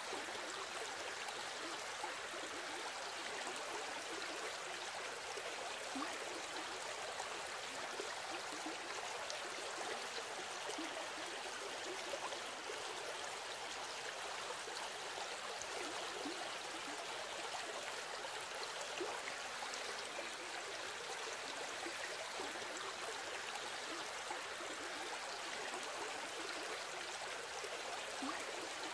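Steady, even noise of running water.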